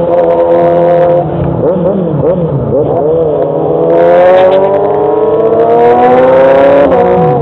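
Motorcycle engine running loud through its exhaust: a few quick throttle blips, then a long rising rev as it accelerates, with the pitch dropping suddenly near the end as it shifts up a gear.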